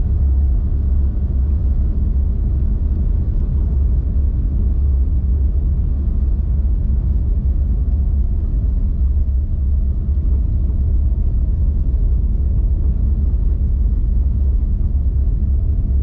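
Steady low rumble of a car being driven, with engine and tyre noise heard from inside the cabin.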